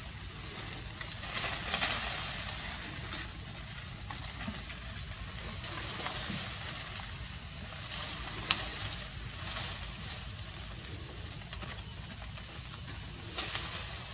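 Forest ambience: a steady high hiss with a few brief sharp rustles or snaps, the loudest about eight and a half seconds in.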